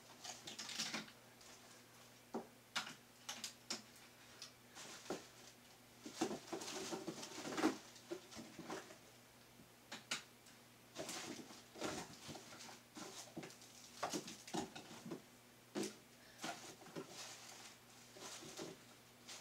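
Irregular small clicks, crackles and rustles, as of things being handled at close range, coming in denser clusters a few times.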